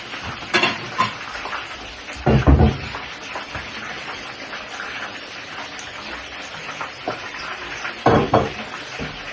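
Sausage and fish frying in hot oil in a pan, a steady sizzle, with a few louder clatters about half a second in, around two and a half seconds in, and about eight seconds in.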